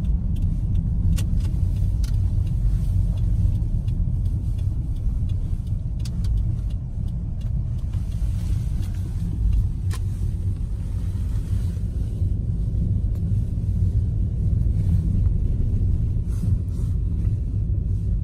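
Steady low rumble of a car driving, heard from inside the moving car.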